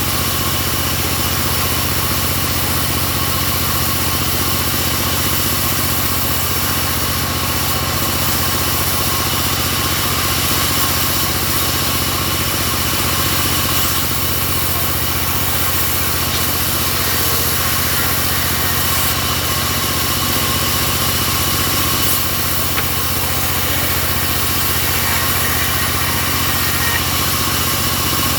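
Homemade bandsaw sawmill running steadily, its engine making a constant drone with a steady high whine over it.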